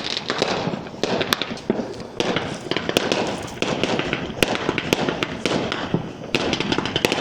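Aerial fireworks bursting in a rapid string of sharp bangs, with crackling between the reports.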